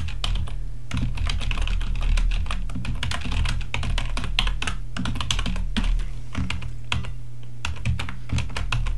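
Typing on a computer keyboard: an unbroken run of key clicks at an uneven pace, several a second.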